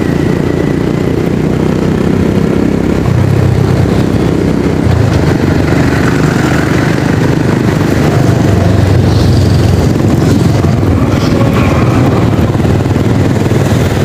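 Motorcycle engine and road noise while riding along a city street: a steady low rumble that grows a little louder about three seconds in.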